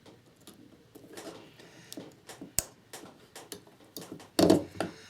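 Spot-welding a copper strip onto an 18650 lithium-ion cell: small clicks and taps as the electrodes are pressed onto the strip, one sharp snap about two and a half seconds in as the weld fires, and a brief louder rustle near the end.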